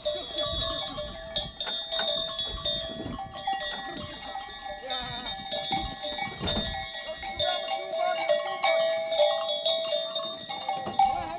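Many livestock bells clinking and jangling without pause as a flock of sheep moves, with a few bleats.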